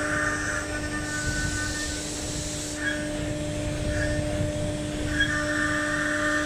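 CNC router spindle running with a steady whine while its bit engraves a wood panel, with higher tones coming and going in short spells as the head moves along the cut.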